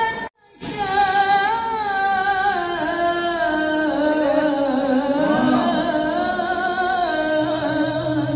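A group of men singing a melodic song into microphones, with long held notes. The sound drops out briefly about a third of a second in, then the singing carries on.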